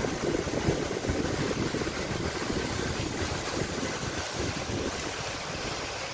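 Wind buffeting the microphone in irregular low gusts over a steady rushing hiss, easing slightly near the end.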